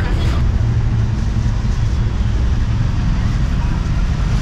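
Steady low rumble of street traffic, with motorbikes and cars passing close by.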